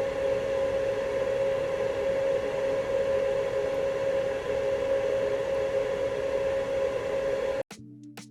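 Steady whir of an electric fan on the soldering bench, a constant hiss with one steady hum tone, cut off abruptly about seven and a half seconds in by electronic music with a drum beat.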